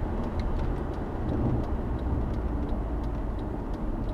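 A car driving at road speed, heard from inside the cabin: a steady low rumble of engine and tyres.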